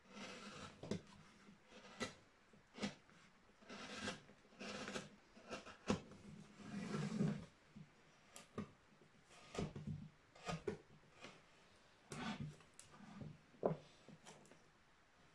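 Hand chisels and gouges cutting into a wooden relief panel: short, irregular scraping cuts mixed with sharp clicks and knocks of steel tools against the wood.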